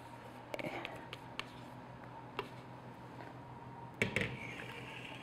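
Spatula scraping and tapping meringue out of a clear mixer bowl, a few light clicks, then a louder knock about four seconds in as the bowl is set down on the stone counter.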